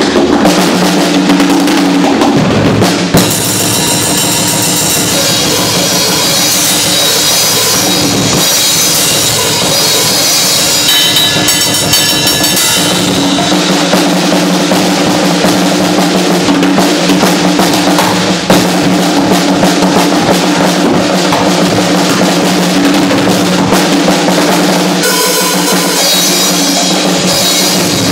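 Acoustic drum kit played loud and without pause: rapid bass drum, snare and tom hits with cymbals ringing throughout.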